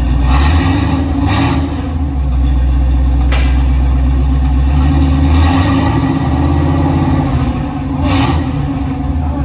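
Chevy 350 small-block V8 running in a squarebody K10, idling with a few short swells in engine note, and a sharp click about three seconds in.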